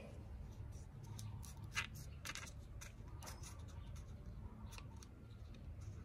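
Faint, irregular clicks and scrapes of a thin wooden skewer working against a clear plastic cup of water.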